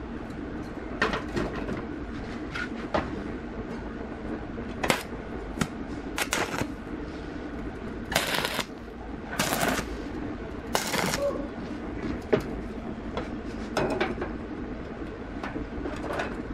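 Workshop handling noises: scattered knocks and clicks of tools and parts being handled, with three short noisy strokes in a row just past the middle, over a steady background hum.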